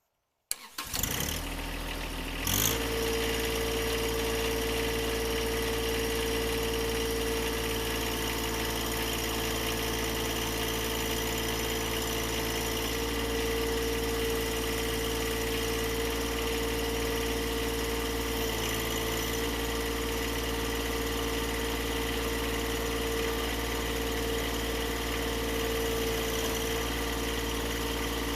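An engine starts about half a second in, picks up a couple of seconds later, then runs at one steady, unchanging speed.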